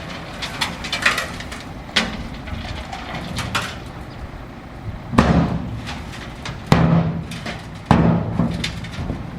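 Bulldozer working gravel: a low engine hum broken by several loud, sharp clanks and knocks, the strongest about five, seven and eight seconds in.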